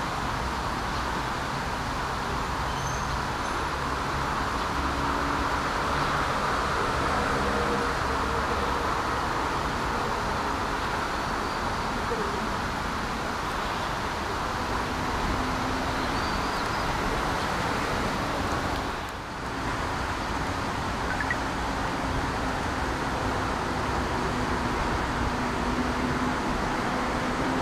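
Steady road traffic noise: a continuous wash with a low rumble. It dips briefly about two-thirds of the way through.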